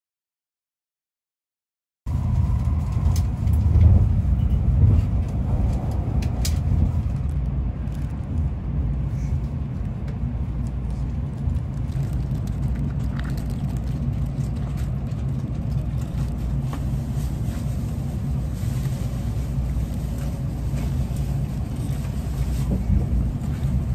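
Shinkansen passenger cabin noise while the train runs: a steady low rumble, with a few light clicks in the first several seconds. The rumble starts about two seconds in, after a cut of silence.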